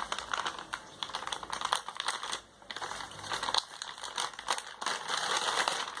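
Phone packaging being unwrapped by hand: irregular crinkling and crackling of plastic and cardboard, with a short lull about two and a half seconds in.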